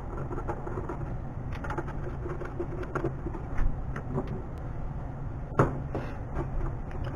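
Small metallic clicks and knocks as a screwdriver takes the screws out of a Honda P28 ECU's metal case and the screws and lid are handled, with a few sharper knocks in the second half, over a steady low hum.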